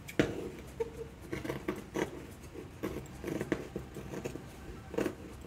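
Fabric scissors snipping through printed cotton fabric in a series of short, irregular cuts.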